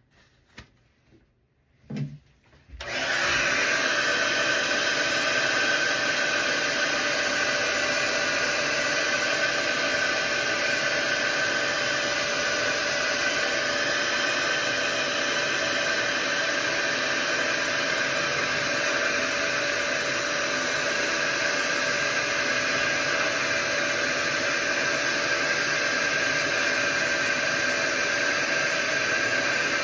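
Handheld hair dryer switched on about three seconds in, after a few faint clicks, then blowing steadily with a constant whine. It is warming the mustache to soften the wax as it is combed out.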